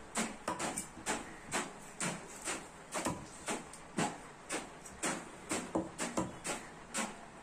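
Heavy knife chopping through a seer fish head on a wooden chopping block: sharp knocks of the blade striking the block, about two a second.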